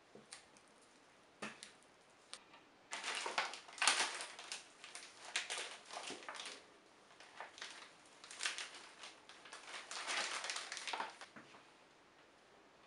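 Flour pouring and being shaken from a container into a plastic mixing bowl of wet dough: a run of rustling and scraping with small taps that lasts several seconds and fades out near the end. A few sharp clicks of the spatula against the bowl come before it.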